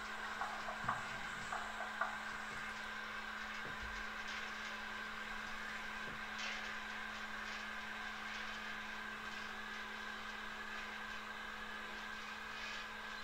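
Märklin 74861 model railway turntable running, its drive motor giving a steady whirr as the bridge turns, with a few light clicks in the first two seconds.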